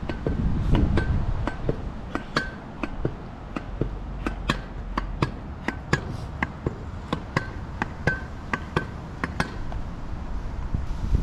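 Vurtego V3 air-spring pogo stick bouncing on pavement: a steady run of sharp knocks, about two to three a second, many with a short metallic ring. The bouncing stops near the end, and wind rumbles on the microphone at the start.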